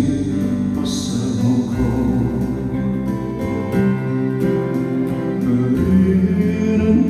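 Instrumental interlude of a quiet ballad: steady accompaniment music with no sung words, and a brief hissy wash about a second in.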